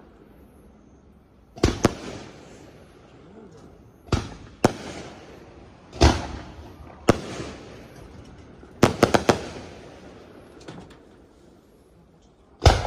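Aerial fireworks shells bursting, heard from a middle distance: sharp reports, some in quick pairs, each followed by a rolling echo. About nine seconds in comes a rapid run of four bursts.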